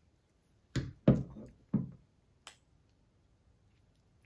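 Clicks and knocks from handling a Penn Authority 2500 spinning reel and its detached handle, with the metal reel set down on a wooden table. Two knocks come close together about a second in, then two sharper clicks, the last about midway.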